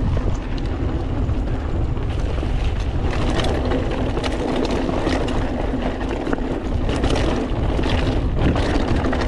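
Mountain bike riding down a dirt trail: wind buffeting the camera microphone, tyres rolling over dirt and rocks, and the bike clattering over bumps.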